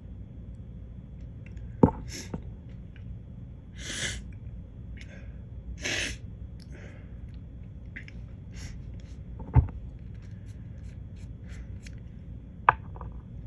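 A man's sharp nasal sniffs and gasping breaths as a sneeze builds and does not come: a false start. There are also three sharp knocks, about two seconds in, near the ten-second mark and near the end.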